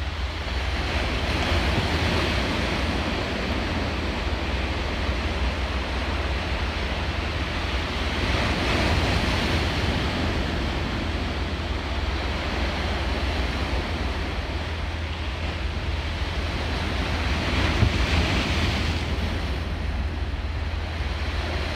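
Sea waves washing against a rocky shore, surging and easing three times, over a steady low rumble.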